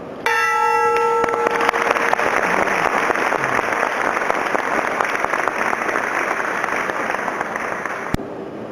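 Large hanging ceremonial bell struck once with a padded mallet, ringing with several clear tones that fade over about a second. Applause from the audience follows and goes on for about seven seconds, then stops suddenly near the end.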